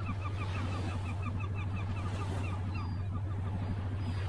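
Sound-effect seascape: a fast run of short bird calls, about five a second, fading out after about three seconds, over a steady low boat-engine drone that swells at the start.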